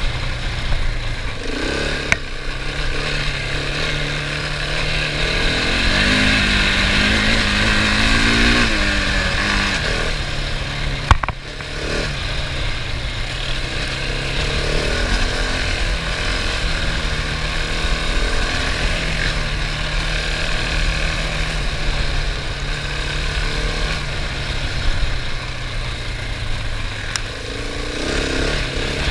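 Husqvarna 701 Enduro's single-cylinder engine riding off-road, its pitch stepping up and down with the throttle and rising in a longer pull about six to nine seconds in, over rushing wind. A single sharp knock about eleven seconds in.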